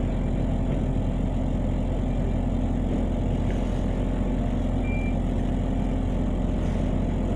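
Double-decker bus engine idling steadily while the bus stands at a stop, heard from inside the upper deck as an even low hum. A short high beep sounds once about five seconds in.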